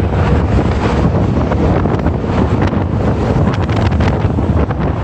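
Windstorm gusts buffeting the microphone in a tunnel that funnels the wind, a loud, steady low rumble.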